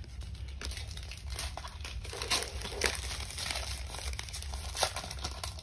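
Crinkling and rustling of a foil trading-card pack wrapper and of baseball cards being handled, with a few sharp clicks along the way.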